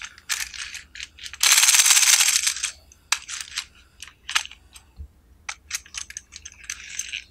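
Plastic toy bicycle handled in the hands: many light hard-plastic clicks and clatters, with a scraping rush lasting about a second, starting around one and a half seconds in.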